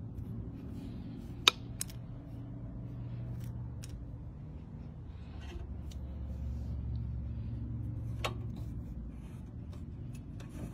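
Small tools clicking and scraping against the lock of a steel wheel clamp as it is worked open, with two sharp clicks, one about a second and a half in and one near the end, over a steady low hum.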